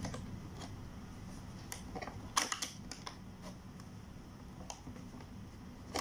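Scattered light clicks and taps of thin plastic as the cut sections of a plastic drink bottle are handled and pushed together, a dozen or so irregular clicks with the loudest about two and a half seconds in.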